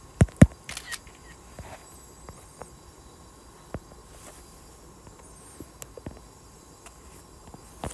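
Two or three sharp taps within the first second, the loudest about half a second in. After them come a handful of scattered light clicks over faint steady background hiss.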